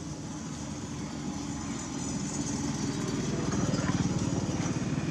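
A small engine running steadily, growing louder through the middle and loudest about four seconds in.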